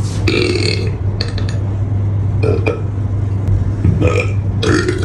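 A person burping, about five short burps in a row, over a steady low hum.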